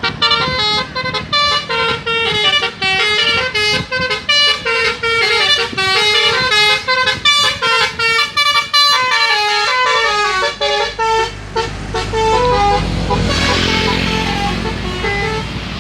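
Tour bus's Basuri telolet multi-tone horn playing a fast melody of short notes, several a second. About two thirds through, the notes thin out and the bus's engine rumble comes in, followed by a brief hiss.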